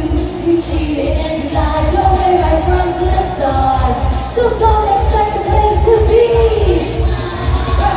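A woman singing a pop dance song live over an amplified backing track with a heavy, steady bass beat.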